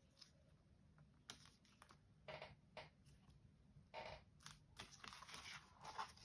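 Quiet handling of paper and cardstock: hands pressing a freshly glued paper panel flat onto a black cardstock album page, then picking the page up. There are a few soft rustles and taps, busier near the end.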